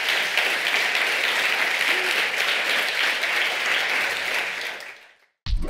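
A large audience applauding, a dense patter of many hands clapping; it fades away about five seconds in, and a brief low thump follows at the very end.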